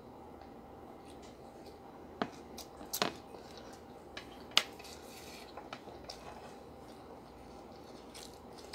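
Tableware clinking at a meal: a few sharp clicks of metal cutlery and dishes against plates, the loudest about four and a half seconds in, over a faint steady room hum.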